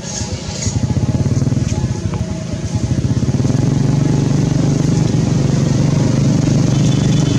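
A small engine running with a fast, steady pulse, getting louder over the first few seconds and then holding steady.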